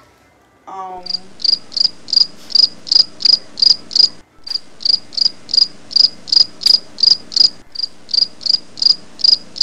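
Cricket chirping, added as the stock 'crickets' sound effect for an awkward silence when no answer comes: evenly spaced high chirps about three a second, with a short break near the middle.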